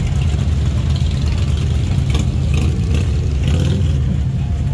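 Motorcycle engines idling and running at low revs, a loud, steady low-pitched drone.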